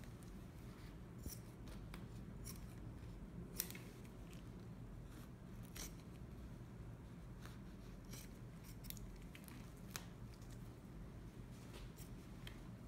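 Scissors snipping through the cotton padding under a cut fiberglass cast, a series of faint, irregularly spaced snips over a low steady hum.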